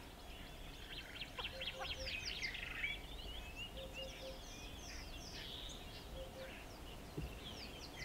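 Faint mixed wild birdsong: many quick high chirps and whistles from several birds. A soft low call of two or three notes comes three times.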